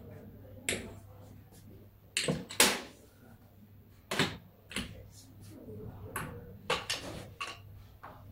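Irregular sharp knocks and clicks, about a dozen of them, the loudest nearly three seconds in, from objects in a heap of clutter being touched and knocked by hand.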